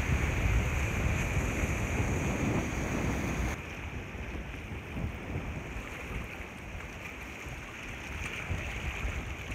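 Wind buffeting the microphone over sea water washing against jetty rocks, a steady rushing hiss with gusty low rumble. About three and a half seconds in the sound cuts abruptly to a quieter, duller wash.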